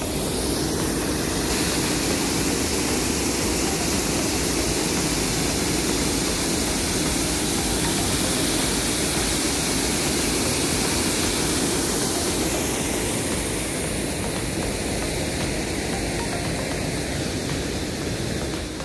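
Water pouring over the top of a closed canal lock gate and falling into the lock chamber below: a loud, steady rushing noise.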